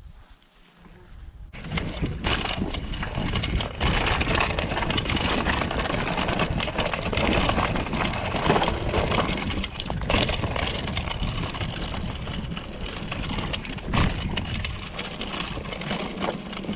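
Mountain bike riding down a rough, stony track: tyre noise and the frame and components rattling and knocking over rocks, starting about a second and a half in.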